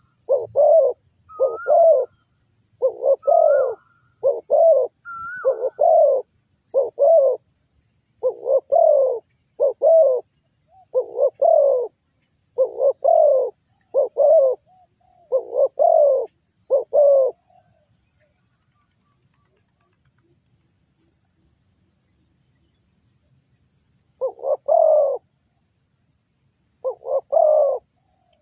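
Spotted dove cooing repeatedly in quick paired notes for about seventeen seconds, then falling silent, with two more short phrases near the end.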